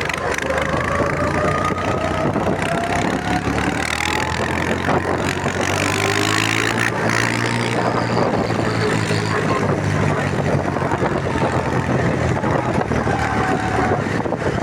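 Universal 445 tractor's diesel engine running steadily as the tractor drives on its first outing after repair, its pitch shifting a little about halfway through, with a faint whine rising and falling over it.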